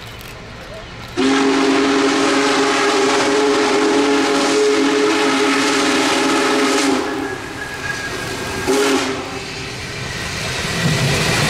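Union Pacific Big Boy 4014 steam locomotive's whistle: one long blast of several notes sounding together for about six seconds, then a short toot about two seconds later. The locomotive's low rumble builds near the end as it draws close.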